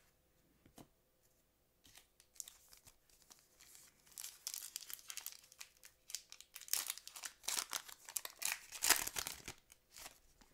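Foil wrapper of a 2006 Fleer Ultra football card pack being torn open and crinkled by hand: a dense crackle that starts about two seconds in and grows louder in the second half.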